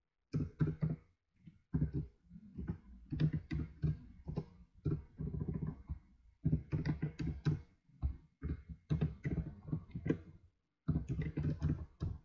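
Computer keyboard typing: quick runs of keystrokes broken by short pauses, as an email address is keyed in.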